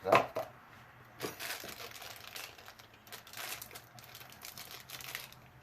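Packaging crinkling and rustling as a box of wheel bearings is handled, with a sharp crackle just after the start and irregular rustles after that.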